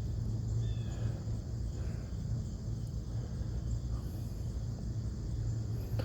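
Outdoor ambience: a steady low rumble with a few faint, short, high chirps, like birds, in the first second or so.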